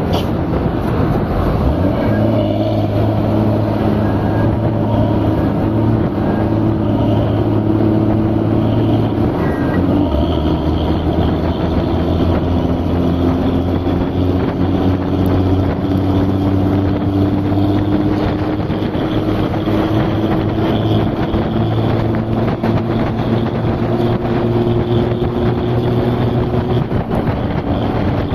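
An engine running steadily under a continuous rushing noise, as from a moving vehicle or boat. One of its tones slowly climbs in pitch from about ten seconds in until near the end.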